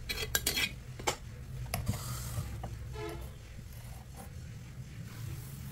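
An empty clay pan being handled and wiped: a few light knocks and scrapes in the first second, then a faint low steady hum.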